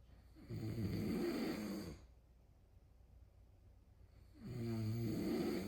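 A cat snoring in its sleep: two slow snores, each about a second and a half long, the second about four seconds after the first.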